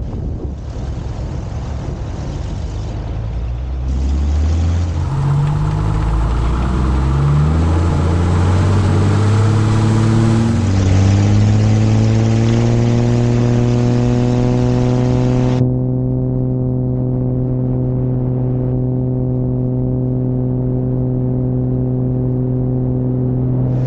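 Light aircraft's piston engine starting. It catches about four seconds in, its revs climb unevenly for several seconds, then it settles into a steady idle.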